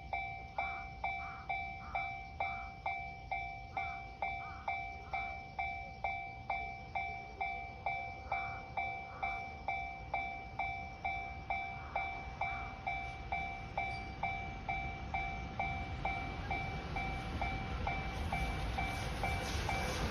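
Railway level crossing warning bell ringing in a steady rhythm of about two strikes a second. Near the end the rising noise of the approaching train builds under it.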